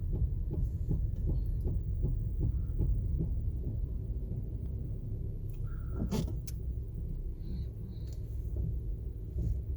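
2019 Honda CR-V running, a steady low rumble with faint knocks repeating a few times a second: the thud noise its owner wants the dealership to hear. About six seconds in there is one louder sharp click with a brief squeak.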